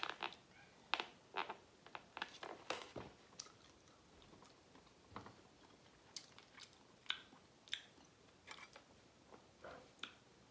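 A person chewing food close to the microphone: short, irregular mouth clicks and smacks, several a second at first and sparser later.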